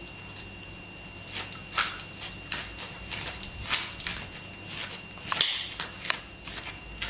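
A small terrier-type dog moving about on a doormat by a door: irregular soft rustles, scuffs and clicks of its paws, the loudest about five seconds in. Under it is the steady hiss and faint high whine of a home-video recording.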